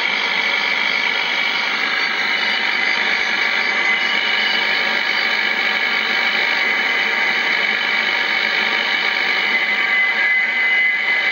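Yaesu FRG-7 shortwave receiver giving out a steady hiss of band noise with no voice on frequency, with a couple of faint steady whistles, one a few seconds in and one near the end.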